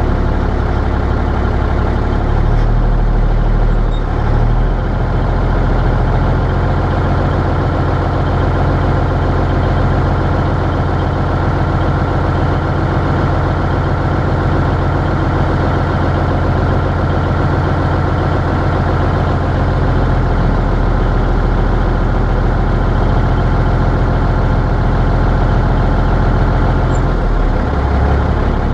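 Cummins 855 cubic-inch inline-six diesel of a 1950 Kenworth CD-521 idling, heard from inside the cab: a loud, steady low rumble whose note shifts a few times.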